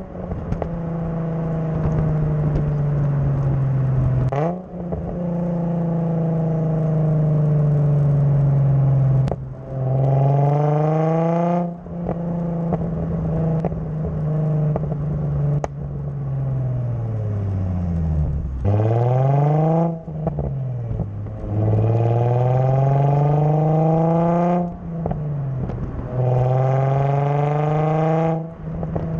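Nissan NISMO Z's V6 running through a titanium Tomei dual-exit exhaust under acceleration. The pitch climbs in repeated pulls and drops sharply at each gear change, with a few slower falls as it eases off. The tone is fairly subdued because the catalytic converters are still fitted. Wind rustle and clatter on the car-mounted microphone run underneath.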